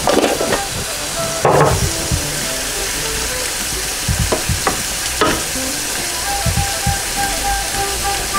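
Sauerkraut sizzling in a stainless steel pot while a wooden spatula stirs it, scraping and knocking against the pot several times.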